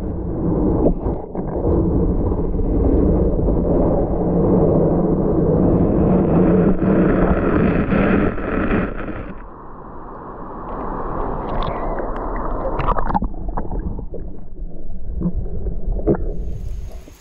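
Muffled water noise picked up by a camera held underwater: a steady rumbling, gurgling rush of water moving around it, with a few sharp knocks and clicks in the second half. It cuts off abruptly at the end.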